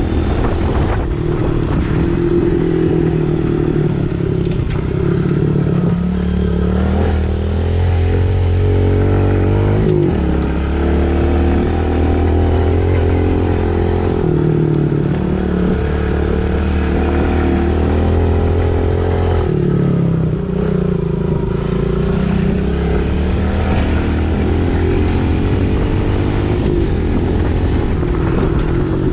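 Pit bike engine running under way, its pitch rising and falling as the throttle is opened and backed off again and again.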